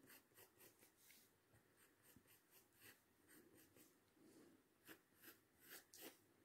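Faint scratching of a graphite pencil on paper in short strokes, growing louder and more frequent near the end.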